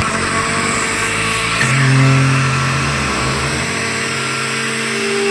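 Electric kitchen blender motor running steadily, its pitch stepping to a different level a couple of times as the speed changes.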